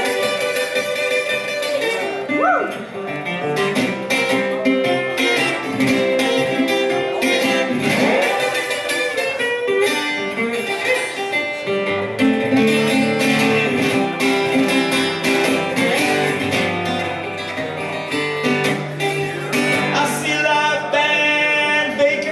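Blues guitar playing an instrumental break between sung verses, with picked single notes over chords and bass notes.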